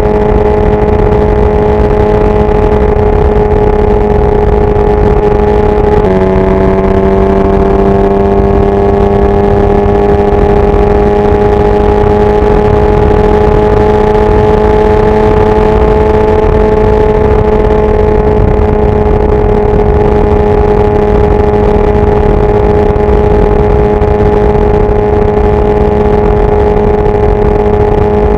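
Kawasaki Ninja 1000SX's inline-four engine running at steady highway speed, with wind rumbling on the microphone. About six seconds in the engine note drops suddenly, then climbs slowly back up and holds steady.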